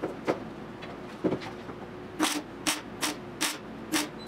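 MIG welder tack-welding the sheet-steel floor panel of a car body: short bursts of arc crackle, a couple of scattered ones at first, then a steady run of about two a second from about two seconds in.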